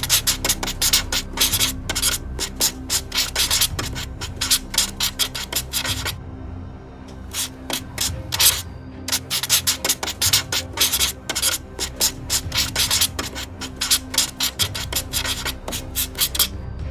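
Tip of a felt brush pen scratching on paper in rapid colouring strokes, several a second, pausing for about a second around six seconds in and briefly near nine seconds.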